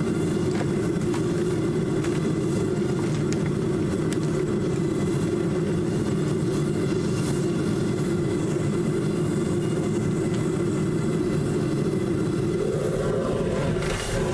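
Foundry furnace burner running steadily while melting aluminum scrap, a constant low rushing noise, with a brief change in tone and a dip near the end.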